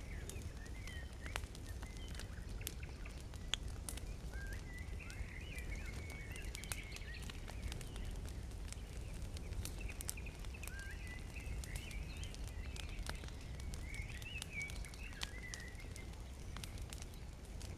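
Small twig fire crackling, with scattered sharp pops over a steady low rumble, while birds sing in short wavering chirps in several bouts.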